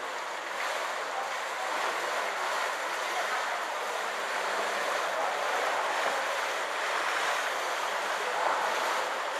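Swimming-pool water splashing and lapping as a steady wash of noise, with indistinct voices in the background.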